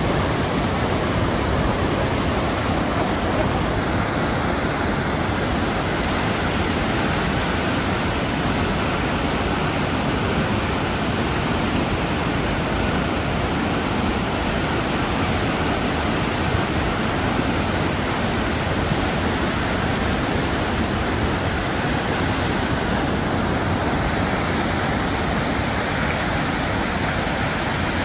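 Blackwater Falls, a large waterfall, giving a steady, even rush of falling water.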